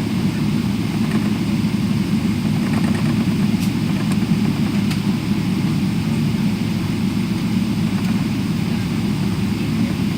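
Steady low rumble of jet engines and airflow heard inside an airliner cabin, with a couple of faint ticks partway through.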